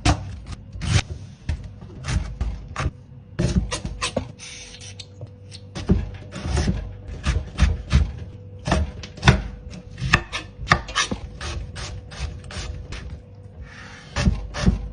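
Close-miked chewing of crunchy coleslaw: raw shredded cabbage crunching in the mouth in rapid, irregular crunches.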